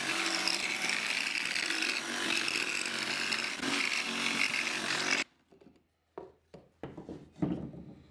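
DeWalt cordless jigsaw cutting through particleboard, running steadily and then stopping abruptly about five seconds in. A few light knocks follow as the saw and the cut pieces are handled.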